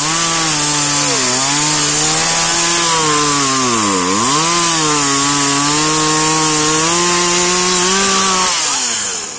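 Chainsaw at full throttle cutting through a log, with a high hiss from the chain in the wood. Its pitch sags as the chain loads up in the cut, most deeply about four seconds in, and the revs fall away near the end.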